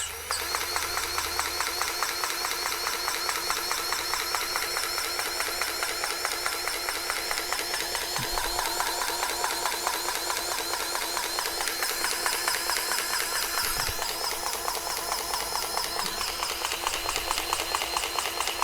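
Powered grease gun running steadily with a fast, even pulsing, pumping grease into the empty track tensioner cylinder of a New Holland C185 track loader to tension the track.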